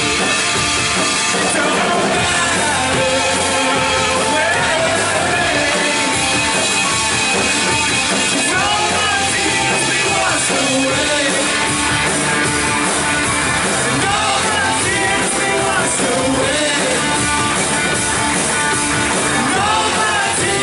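Live church worship band playing an upbeat song with singing.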